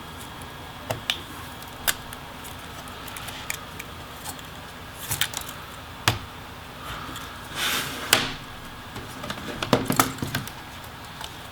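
Scattered sharp clicks and taps of a plastic laptop palm rest being lifted off the chassis, with a brief scraping rustle about eight seconds in and a quick run of clicks near the end.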